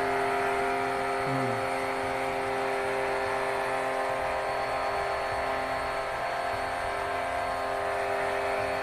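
Steady whirring hum of an electric motor running at a constant speed, with several fixed tones over a noisy hiss.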